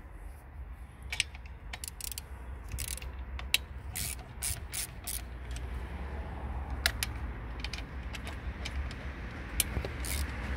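Ratchet wrench clicking in irregular runs while loosening the 10 mm bolts that hold the ignition coil on the engine.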